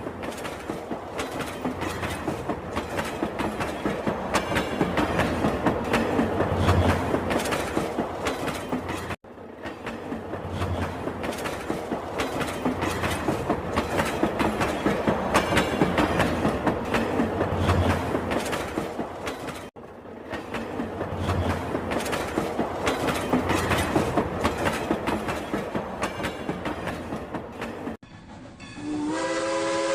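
Rail King classic toy train running, with a dense rattling clickety-clack rhythm that breaks off briefly twice. Near the end the train's steam-whistle sound starts.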